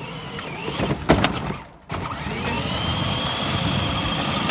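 Battery-powered GMC Denali kids' ride-on toy truck running on its electric drive motors. About a second in there are two sharp knocks as it goes down off the curb. After a brief break the motors come up to a steady high whine as it drives along the street.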